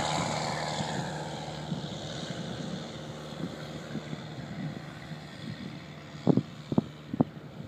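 Engine and propeller of a Carbon Cub SS light aircraft running at full power, the steady drone fading as the plane climbs away. A few short buffets of wind on the microphone near the end.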